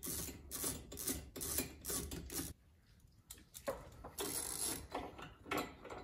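Socket ratchet on an extension clicking in quick repeated strokes while loosening the dash mounting bolts, with a pause of about a second halfway through.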